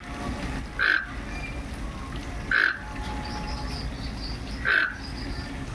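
Toco toucan calling: three short, harsh calls about two seconds apart. Faint high-pitched chirps from another bird come between the second and third calls.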